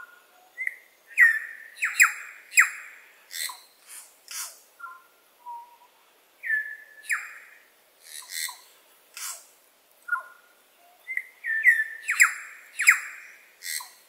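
New Zealand bellbird (korimako) singing: short phrases of ringing notes mixed with sharp clicks, repeated several times, with the fullest phrases about a second in and again near the end.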